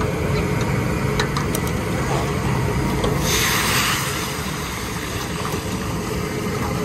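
Large woks of fish deep-frying over gas burners: a steady sizzle and burner noise, with a sudden loud hiss lasting about a second, about three seconds in, as flames flare up over a wok.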